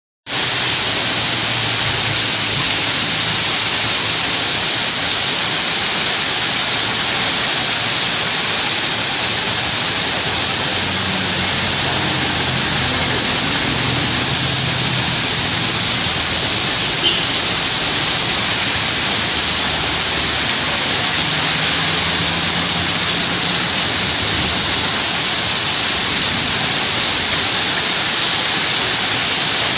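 Heavy rain pouring down steadily onto a wet street in a downpour, a loud, even hiss of water with no let-up.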